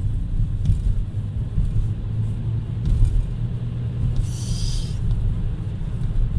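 Car driving, heard from inside the cabin: a steady low engine and road rumble, with a brief hiss about four seconds in.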